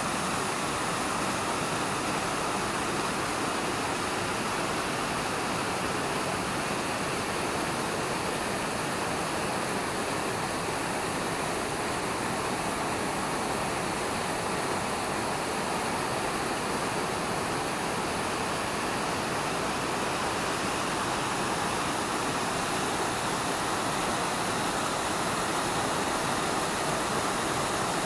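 Upper Multnomah Falls: Multnomah Creek pouring over a rock ledge as a steady, unbroken rush of falling water.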